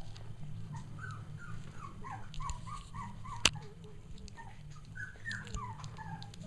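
Three-week-old Cavalier King Charles Spaniel puppies whimpering and yipping in play-wrestling: strings of short, high, falling squeaks from about a second in, and again later. A single sharp click in the middle, over a low steady hum.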